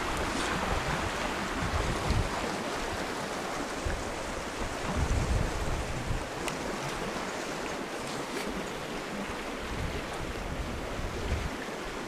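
Wind buffeting the camera microphone: a steady rushing noise with irregular low rumbling gusts, and a few faint clicks.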